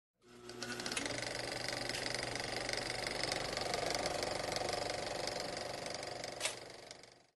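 Steady, rapid mechanical clattering with a whir over it. It fades in just after the start and fades out near the end, with one sharp click shortly before it dies away.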